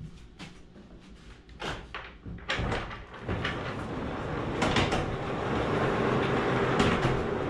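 Large wooden barn doors being slid shut: a few knocks, then from about two and a half seconds in a continuous rolling rumble with bumps as the heavy doors travel across the opening.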